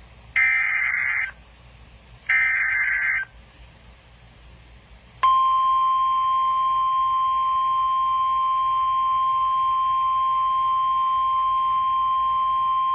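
Emergency Alert System SAME data header: two short, harsh buzzing data bursts about two seconds apart. Then, from about five seconds in, the long steady single-pitch National Weather Service attention tone, which signals a tornado warning about to be read.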